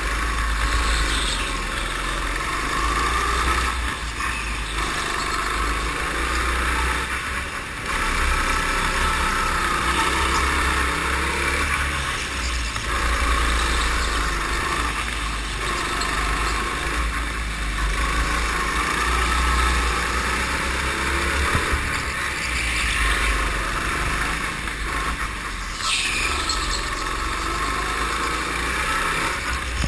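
Go-kart engine running hard through laps, swelling and easing every few seconds as the kart accelerates out of corners and slows into them, over a steady low drone. Near the end a short high squeal falls in pitch.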